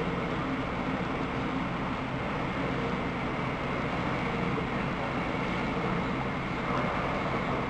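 S-Bahn train running along the elevated line through the station, a steady, even rumble.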